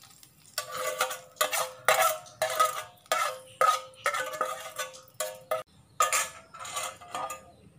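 A spoon scraping and knocking inside a metal frying pan, about two strokes a second, the pan ringing with each stroke, as fried mustard-seed tempering is scraped out.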